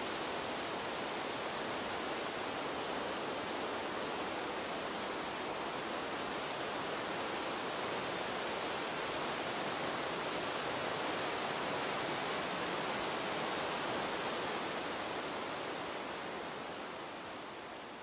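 Wind sound effect: a steady rushing hiss with no distinct gusts, fading down over the last couple of seconds.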